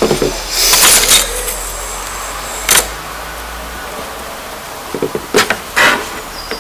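Wooden craft sticks handled on a tabletop: a scraping rustle about a second in, a sharp clack near the middle, and a cluster of clicks and knocks of wood near the end.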